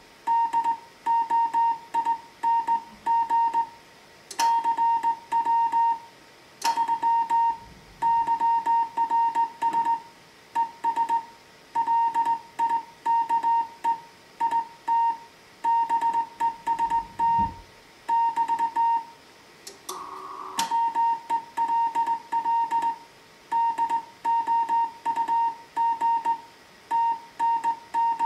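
Slow Morse code from a Heathkit HW-101 transceiver: a single steady tone keyed on and off in dots and dashes. A few sharp clicks fall between the characters.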